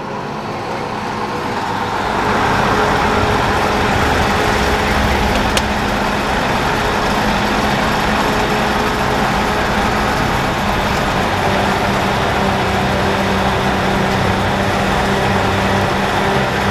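Engine of the vehicle towing a hayride wagon running steadily, with the rumble of the moving ride; it grows louder about two seconds in.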